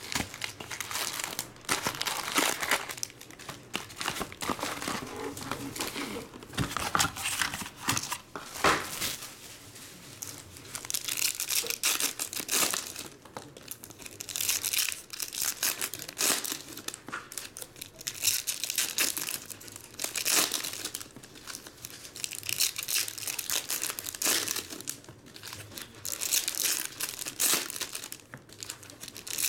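Foil wrappers of Topps Star Wars trading-card packs crinkling and tearing as they are ripped open by hand, in irregular crackly bursts, one pack after another.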